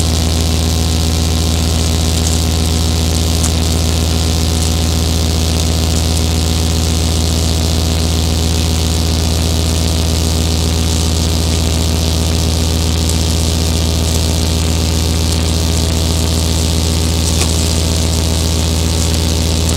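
Modular synthesizer drone: a loud, steady low hum with stacked sustained tones and a hiss of noise over the top, the middle tones wavering slowly.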